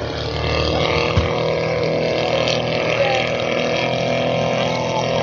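Giant-scale radio-controlled Curtiss JN-4 Jenny biplane flying overhead, its engine and propeller droning steadily at an even throttle.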